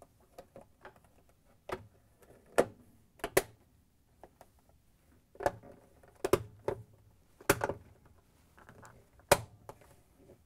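Plastic front cover of a refrigerator's control panel being pressed and clipped into place: about ten sharp plastic clicks and knocks, spaced irregularly.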